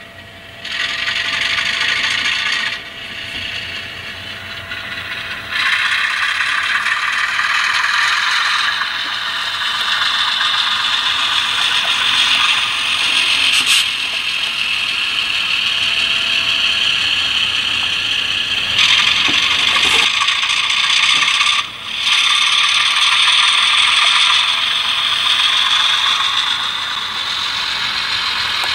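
HO-scale Alco C425 model diesel locomotive running on the layout, its motor and gear drive whirring steadily. The sound drops back a few seconds in and again briefly about 22 seconds in, as the locomotive slows or pauses.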